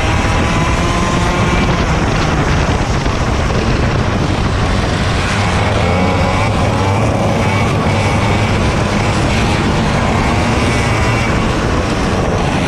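Racing kart engine heard onboard at race pace, its note rising as it accelerates and dipping as it slows for corners, with steady wind noise on the camera microphone.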